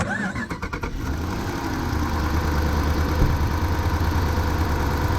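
Jeep Grand Cherokee HEMI V8 cranking briefly, catching, and then idling roughly. It is misfiring on cylinder 5, where the injector circuit has set a P0205 code.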